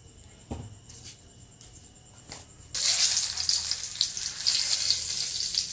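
Hot mustard oil in a pan bursting into a loud sizzle about three seconds in as food goes into it, after a few soft knocks, then sizzling steadily.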